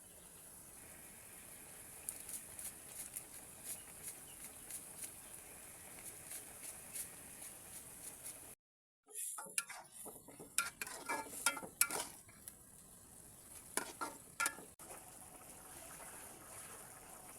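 Food sizzling in a frying pan, with a utensil stirring it and clinking and scraping against the pan in the second half. The sound cuts out for a moment about eight and a half seconds in.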